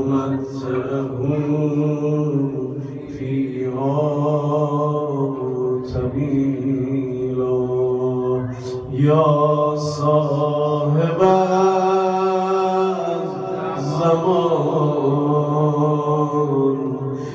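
A male maddah's unaccompanied solo chant, sung in long, drawn-out notes with slow rises and falls in pitch.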